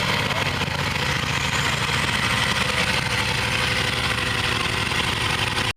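Bugatti Veyron's 8.0-litre quad-turbocharged W16 engine idling steadily, with a steady hiss over the low engine note.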